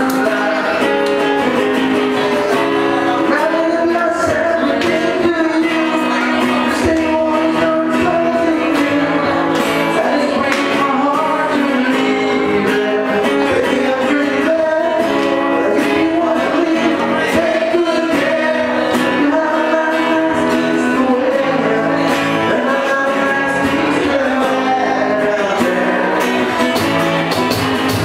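A live rock band playing a song, a singer's voice over electric guitar and a steady drum beat.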